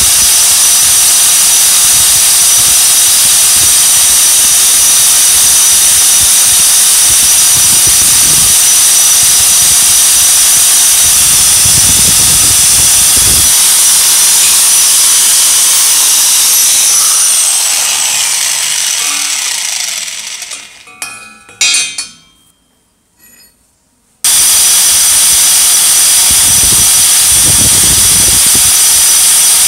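Electric motor-driven brass wire wheel running with a steady high whine while it brushes rust off the knurled steel chuck of a vintage Miller Falls hand drill. Partway through it winds down with a falling pitch to near silence, with a few clicks of handling. About two seconds later it is suddenly running again at full speed.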